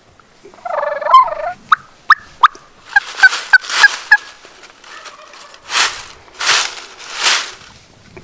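A Gould's wild turkey gobbling with a warbling rattle about a second in, followed by a string of short, sharp call notes. Near the end come three broad, breathy bursts of noise.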